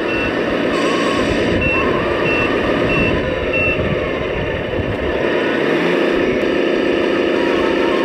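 Reversing beeper chirping about every two-thirds of a second over the simulated diesel engine sound of a radio-controlled semi truck hauling a loaded lowboy trailer. The beeping stops about four seconds in and the engine sound settles into a steady idle.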